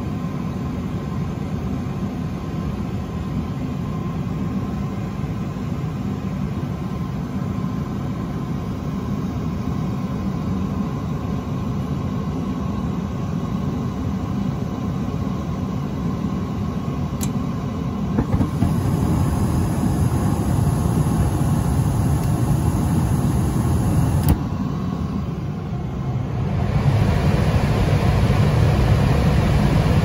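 Johnson Controls gas furnace running with a steady low hum during its third ignition try. A sharp click comes about seventeen seconds in and the sound grows louder for about six seconds, then another click, and it gets louder again near the end. No flame sensor is installed, so the furnace lights but cannot prove flame.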